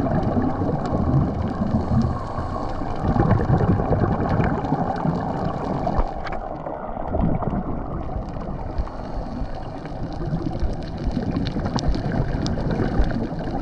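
Underwater ambience: a steady low rush and gurgle of water with a few scattered faint clicks.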